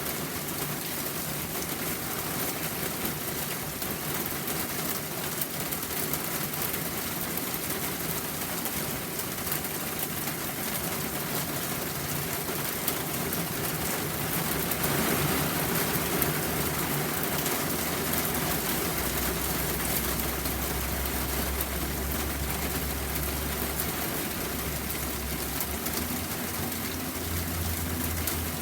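Steady rain hiss. About two-thirds of the way in, a low steady hum, like an idling engine, sets in beneath it.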